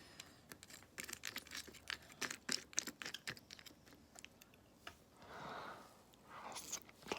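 Close-up eating sounds from a cup of yogurt with crunchy peanut and chocolate mix-ins: a quick run of sharp clicks and scrapes over the first few seconds, then a softer rushing noise about five seconds in, and more clicks near the end.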